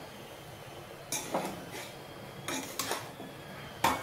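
Metal spatula scraping and clinking against a wok while stir-frying giant taro pieces, a handful of short strokes starting about a second in.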